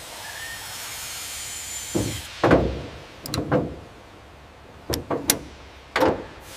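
A hiss, then a run of about seven knocks and clunks, several in quick pairs, as a fuel tank is set onto a pickup frame and its straps are fastened with a wrench.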